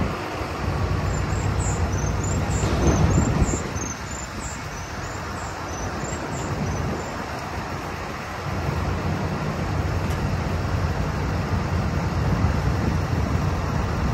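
Steady low rumble of heavy diesel trucks running at the roadside, mixed with road traffic noise. It swells about three seconds in, dips, then grows again from about eight seconds.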